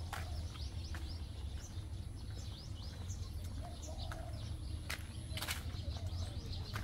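Small birds chirping, many short high calls scattered throughout, over a steady low rumble. A few sharp clicks stand out, one right at the start and two about five seconds in.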